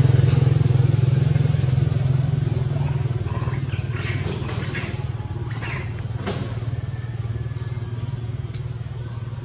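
A motor vehicle's engine running steadily, a low rumble that slowly fades. A few short high chirps come through it in the middle.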